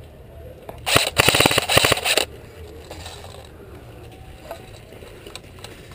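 Airsoft gun firing one rapid burst of about a second and a half, a fast string of sharp cracks, with a few faint single clicks afterwards.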